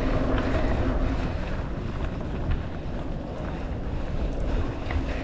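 Steady wind rushing on the microphone of a moving mountain bike, with a low rumble.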